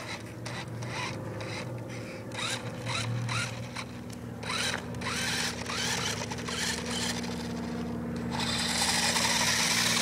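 Toy remote-control ATV driven in short stop-start bursts over packed snow: its small electric motor whirring up in brief rising spurts, with scraping and crunching on the snow. Near the end it runs more steadily.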